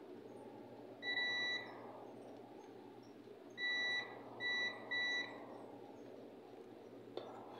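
Digital multimeter's continuity beeper sounding as the test probes touch points on a circuit board: one beep of about half a second, then three shorter beeps in quick succession a couple of seconds later, each a steady high tone. Each beep marks a low-resistance path, a connection or short, between the probed points. A faint click comes near the end.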